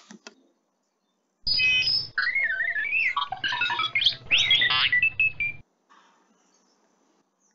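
Custom alert sound played by Trimble Access surveying software as it starts the robotic connection: about four seconds of electronic beeps, chirps and warbling whistles that glide up and down in pitch over a low hum, starting about a second and a half in and cutting off suddenly.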